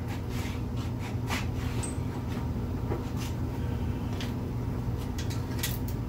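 Steady low hum of the room with scattered light clicks and taps of hand tools and the wheel being handled, several of them close together near the end.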